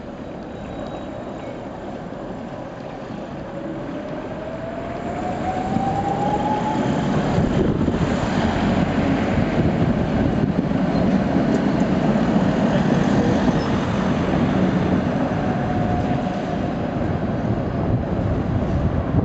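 A two-car tram set rolling past close by on street rails, its rumble growing louder over the first few seconds as it approaches. A whine rises in pitch a few seconds in, and a fainter whine sounds near the end.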